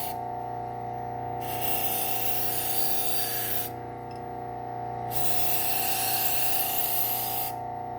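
Bucktool low-speed sander running steadily, with the hiss of a serrated knife edge rubbing across its Scotch-Brite wheel to strip the burr from the serrations. The hiss stops early on, returns about a second and a half in, breaks off near four seconds for about a second, then comes back and stops again near the end as the blade is lifted and reapplied.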